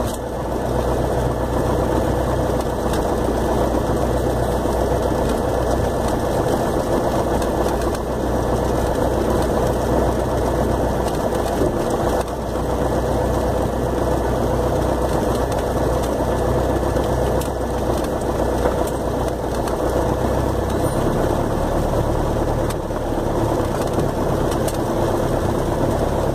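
Cessna 172's piston engine idling steadily at low power, heard from inside the cockpit.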